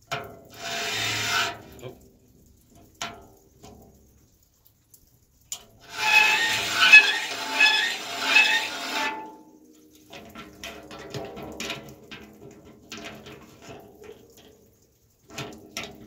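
Andrus hand-cranked saw filer's file rasping across a tooth of a circular sawmill blade as the crank is turned. It comes in bursts: a short one about a second in and a longer, louder one from about six to nine seconds, then lighter scraping and clicks.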